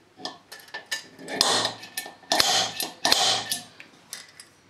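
Metal scraping and clicking on a 35 mm square iron bar as it is marked out with a pointed scriber and a steel tape measure. A few light clicks come first, then three harsh scrapes of about half a second each.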